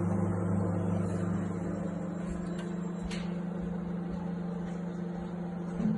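1000-watt microwave oven running with a steady hum; the deeper part of the hum fades out about two seconds in, leaving a lighter hum, and there is a sharp click about three seconds in.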